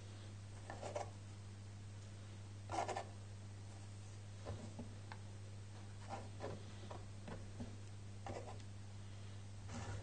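Kitchen knife scraping and tapping on a wooden cutting board as chopped onion is scraped off the blade and pushed into a halved butternut squash: a scattering of short, irregular scrapes, the loudest about three seconds in, over a steady low hum.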